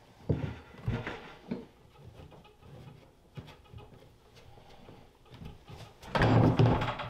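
Knocks and handling sounds as a switched-off router and its aluminium spin-weld tool are pulled off and handled on a plastic holding tank: a few sharp knocks in the first second and a half, quieter rubbing after that, and a louder knocking and rubbing sound about a second long near the end.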